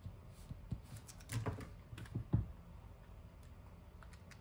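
Ballpoint pen writing on paper, a few short scratchy strokes, followed by light clicks from a handheld calculator being picked up and keyed near the end.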